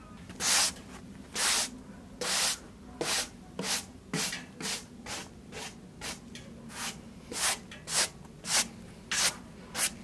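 A freshly sawn Paulownia board being hand-sanded with a sanding block in quick back-and-forth strokes. There are about sixteen strokes: the first three are slower and longer, and the rest come about twice a second.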